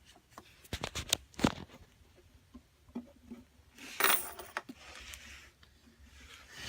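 Coins clinking and rattling against the plastic parts of a LEGO coin vending machine: a few sharp clicks about a second in, then a longer clattering rattle around four seconds in.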